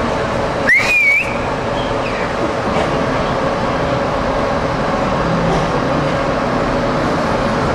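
Steady machinery hum and rumble with a constant low drone. About a second in, a short whistle rises and wavers briefly.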